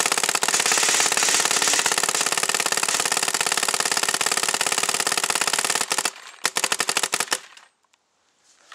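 SL74 paintball marker firing in uncapped ramping mode: a long, very rapid string of shots for about six seconds, then a few short bursts before it stops.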